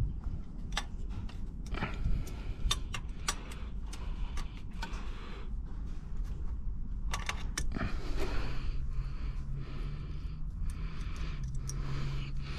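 Metal hand tools clinking, clicking and scraping in a run of sharp knocks, as a wrench works at a seized fuel line fitting. From about eight seconds in, a low steady hum comes in underneath.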